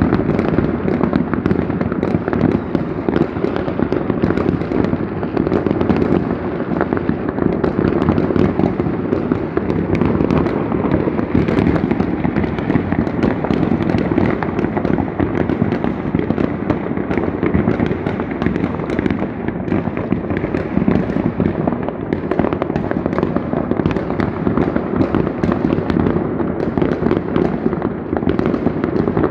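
Many consumer fireworks set off by private people going off at once across a neighbourhood: rockets bursting and crackling in a dense, unbroken stream of bangs.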